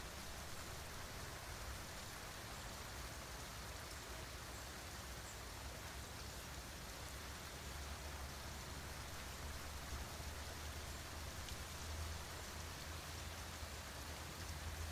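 Steady rain falling, an even hiss of drops with scattered sharper ticks, over a low rumble that grows a little stronger about halfway through.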